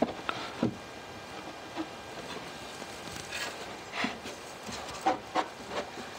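Light, irregular wooden knocks and taps as a pine drawer box is handled and shifted on a wooden workbench, about eight separate hits.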